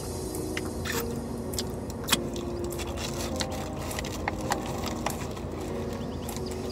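Sharp crinkles and crunches, the loudest about two seconds in, as a samosa is eaten out of a paper bag. Under them runs the steady low hum of a car cabin with the engine running.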